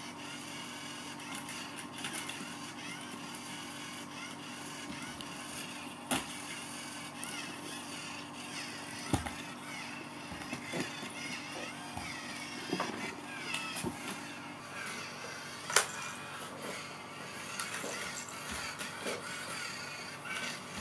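Steady hum with scattered sharp knocks and taps as cats bat a motorized cat teaser toy and tip it over; the loudest knocks come about 9 and 16 seconds in.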